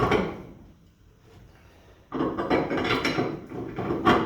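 A homemade coil spring compressor being tightened with a wrench: a brief clank at the start, then, about two seconds in, a run of rapid metallic ratcheting and scraping as the coil spring is squeezed further.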